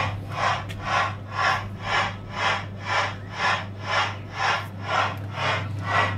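Coin-operated kiddie ride train playing a steam-train chuffing sound effect, about two chuffs a second, over the steady hum of its ride motor.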